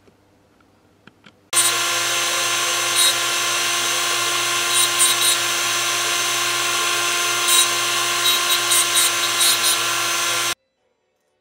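Handheld rotary tool with a small cutting disc, switched on about a second and a half in, running at a steady whine and switched off near the end. Short harsher grinding bursts come through it as the disc cuts the brass spokes of a miniature steering wheel.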